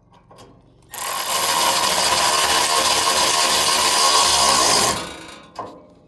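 A power drill runs at full speed for about four seconds, then winds down with a falling whine, working fasteners on a round baler's pickup.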